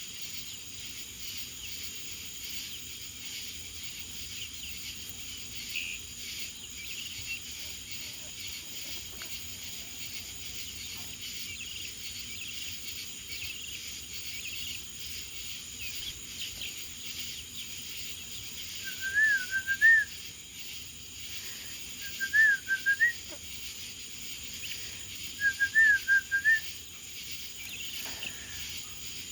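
Steady chirring of crickets, with three short warbling whistled calls, each about a second long and about three seconds apart, in the second half.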